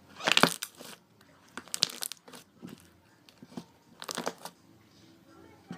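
Slime being squeezed and worked by hand, crackling in short bursts: three louder ones about two seconds apart, with smaller clicks between.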